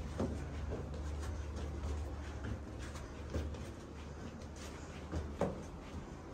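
Footsteps climbing worn brick stairs: irregular light knocks, the strongest about five seconds in, over a low steady rumble.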